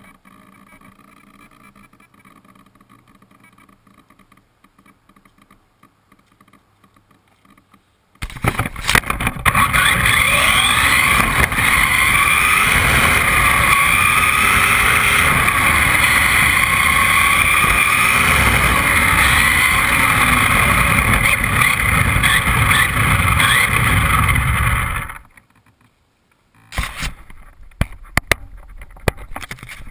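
Onboard sound of a Team Associated RC18T, a small electric RC truck, driving: loud rattling running noise with the electric motor's whine rising and falling as it speeds up and slows. It cuts off suddenly, and a few sharp knocks follow near the end. Before the run there is only a faint steady hum.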